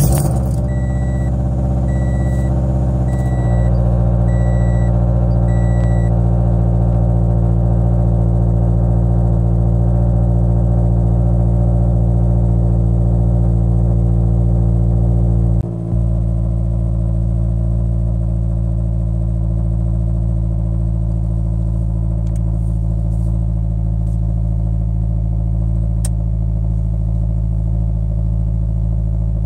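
Scion FR-S's 2.0-litre flat-four boxer engine on a cold start, heard from inside the cabin: it catches right at the start and settles into a steady, really loud fast idle through an equal-length header, catless front pipe and Invidia N1 exhaust. A faint repeating beep sounds over the first few seconds.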